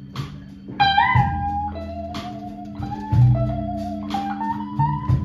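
Live blues band: an electric guitar plays a lead line, a note bent up and shaken with vibrato about a second in, then a run of shorter held notes, over a steady bass line and sharp percussive hits.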